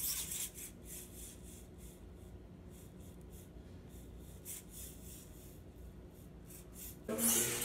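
Pololu Balboa balancing robot's small gearmotors and wheels making faint scratchy whirring against carpet in short bursts as it rocks to stay upright. A much louder burst of noise starts about seven seconds in.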